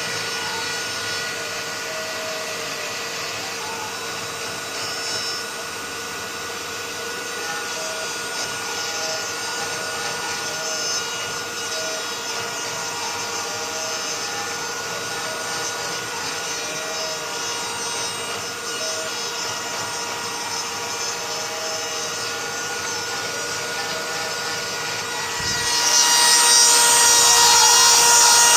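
Cyclone CNC mill milling, its spindle running at a steady whine over a cutting hiss, with short pitch sweeps every second or two as the stepper motors move the axes. Near the end the cut gets much louder and harsher.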